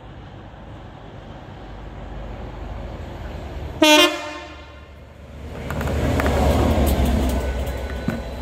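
Class 67 diesel locomotive giving a short, loud horn toot about four seconds in, then running through the station, its engine and wheels growing louder as it passes, with a sharp click near the end.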